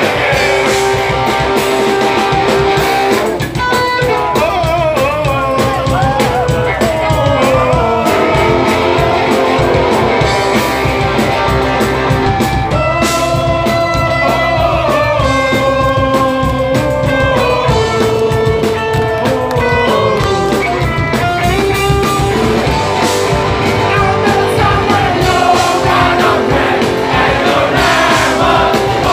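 A live hardcore band playing loud: distorted electric guitars, bass and drums under a singer's vocals, steady throughout.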